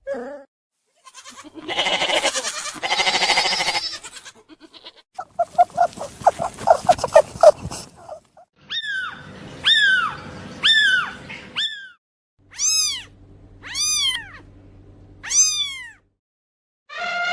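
Cat sounds: a noisy, hiss-like burst and a fast pulsing chatter, then a run of short separate meows falling in pitch, about four and then three.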